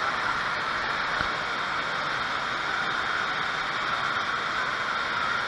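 Steady rushing din of an indoor water park, with water pouring and spraying from a play structure.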